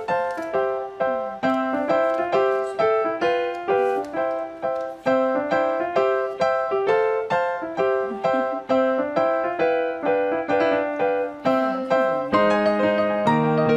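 Background music played on piano or keyboard, a brisk run of plucky notes at about three a second, with lower chord notes joining near the end.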